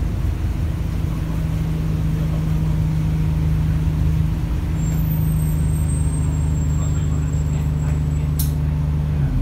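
Alexander Dennis Enviro 200 bus heard from inside the saloon: the diesel engine runs with a steady low hum as the bus slows almost to a stop. A faint high squeal comes in about halfway through, and a single sharp click near the end.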